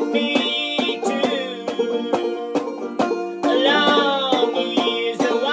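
Clawhammer banjo playing: a steady, evenly repeating picked rhythm over ringing strings, with a few sliding notes about halfway through.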